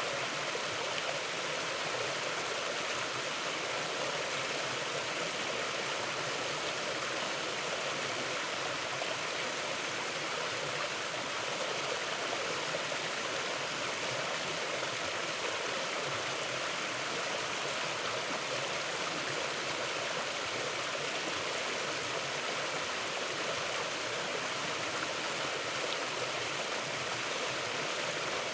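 Mountain river flowing: a steady, even rush of running water with no breaks or changes.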